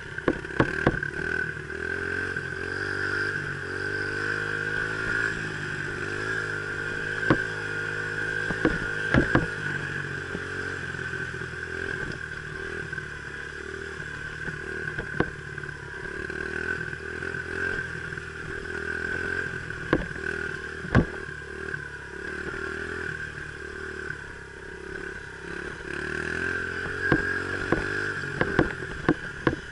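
Dirt bike engine running on a trail ride, its pitch rising and falling with the throttle, under a steady high whine. Sharp clattering knocks come often, most thickly near the start and the end.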